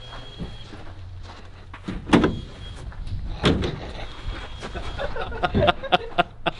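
Homemade wooden ramp of 2x4s and plastic sheeting knocking as it is handled and loaded: two heavy thuds about two and three and a half seconds in, then a quick run of lighter knocks and clicks.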